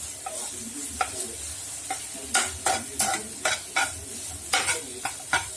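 A utensil stirring onion-tomato masala in a pan of hot oil, scraping and knocking against the pan about three times a second from about two seconds in, over a steady sizzle of frying.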